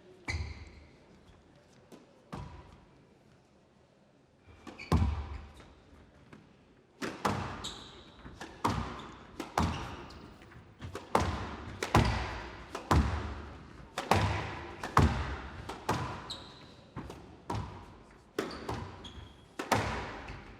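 Squash rally: the ball struck by rackets and hitting the court walls, sharp impacts a few seconds apart at first, then a steady exchange of about one hit a second, each with a short echo.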